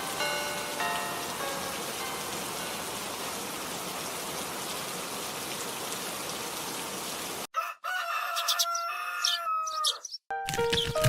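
A steady rain-like hiss, cut off suddenly about seven and a half seconds in by a rooster crowing for about two seconds. A few chime-like notes sound at the start, and a melody begins near the end.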